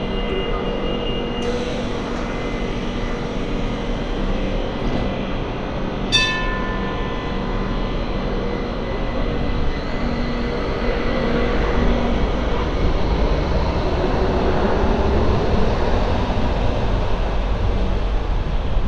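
MTR Light Rail cars at a stop. A standing car hums steadily, and a single ringing chime sounds about six seconds in. In the last third the running noise of a light rail train on the track grows louder.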